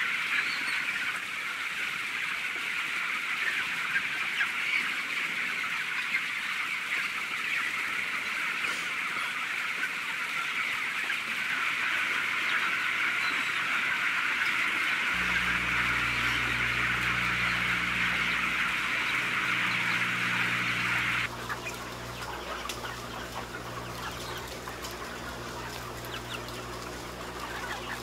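Dense, unbroken cheeping of a large flock of broiler chicks. About halfway through, a steady low mechanical hum joins. A few seconds later the cheeping drops away suddenly, leaving fainter bird calls over the hum.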